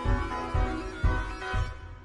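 Background music with a steady low beat and sustained instrumental tones, fading toward the end.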